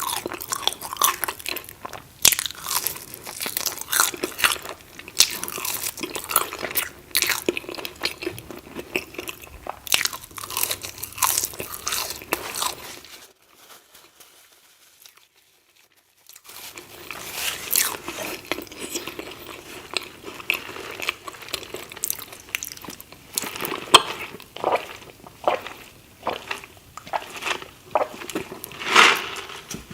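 Close-miked crunchy food being bitten and chewed, with loud irregular crunches. The crunching stops for about three seconds in the middle, then resumes.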